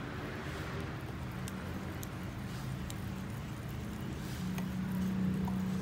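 Wire whisk beating batter in a glass mixing bowl: wet stirring with the wires scraping and clicking against the bowl, over a steady low hum.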